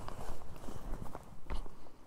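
Footsteps of a person walking over rock and forest floor, an uneven run of low thuds and scuffs with a couple of sharp clicks.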